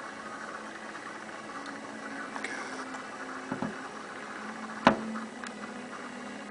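Steady faint hiss and low hum with a few sharp knocks and clicks, the loudest about five seconds in, like a handheld camcorder being handled.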